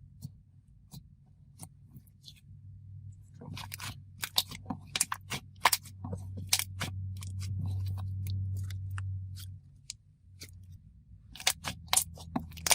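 A buttercream slime base being squished and stretched by hand, giving sharp sticky clicks and small bubble pops, a few at first and then many in quick succession from about three and a half seconds in, over a low steady hum.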